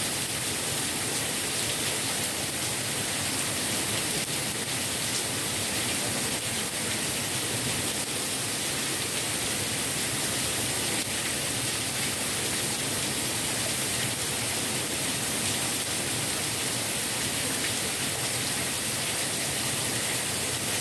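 Heavy rain pouring steadily through a tree's leaves onto a lawn and street: an even, unbroken hiss.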